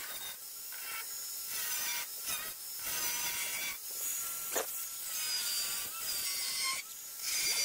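Angle grinder with a thin cut-off wheel cutting through a car's sheet-steel quarter panel: a high-pitched whine with a hissing scrape, its pitch sagging and recovering as the disc bites in and eases off, with several brief dips along the way.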